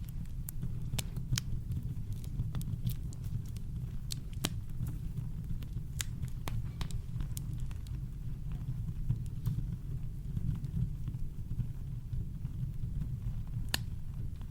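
Campfire crackling: irregular sharp pops and snaps over a steady deep brown-noise rumble.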